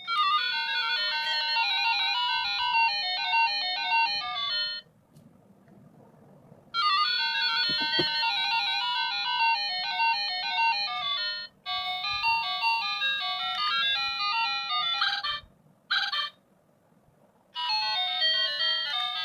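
Wireless doorbell receiver playing its electronic chime tunes, breaking off and starting again a few times as the chime is switched from one of its 32 melodies to the next.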